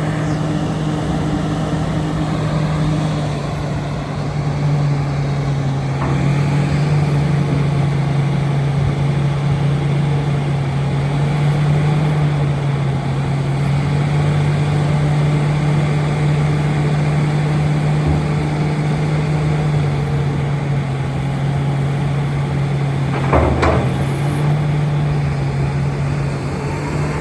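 Komatsu PC360LC-11 excavator's diesel engine running steadily, dipping briefly about four seconds in, with a sharp metallic clank near the end.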